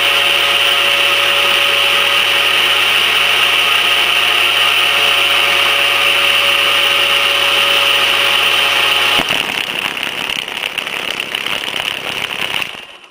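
Steel shaft spinning in cast-iron pillow-block bearings, its drive running with a steady mechanical whine and hum. About nine seconds in, the hum cuts out suddenly and a quieter, rough fluttering follows before the sound stops.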